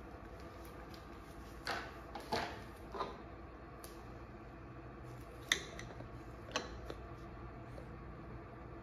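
Light clicks and taps of small plastic parts, the battery's vent caps and a plastic funnel, being handled and set down on a wooden table, about five in all, over a faint steady hum.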